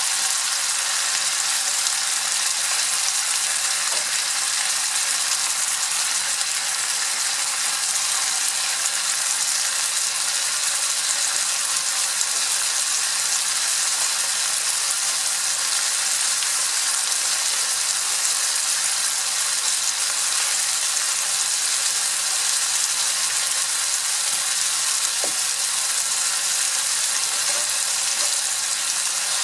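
Chopped tomatoes and onions sizzling steadily as they sauté in a nonstick skillet over medium heat.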